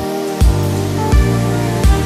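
Background music: held chords over a slow, steady low beat.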